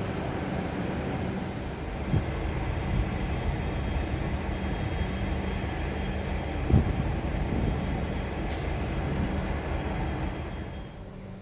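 Train running, a steady drone with a low hum, with two sharp thumps about two and seven seconds in; it falls away shortly before the end.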